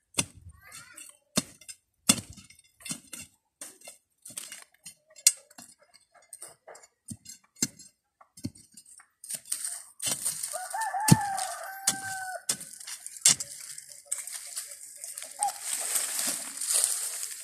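A wooden digging stick knocking and scraping into dry, stony soil in irregular strokes. About ten seconds in, a rooster crows once in the background.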